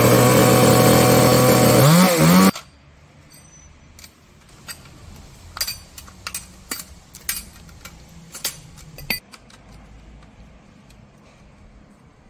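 UDT UCS-45S two-stroke chainsaw engine running just after starting, revving up near two seconds in and then cutting off abruptly. After that, a run of light metallic clicks and taps from hands working on the saw's bar and chain-tension adjuster.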